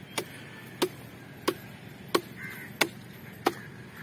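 Six evenly spaced chopping strikes, about one every two-thirds of a second, each a short sharp blow.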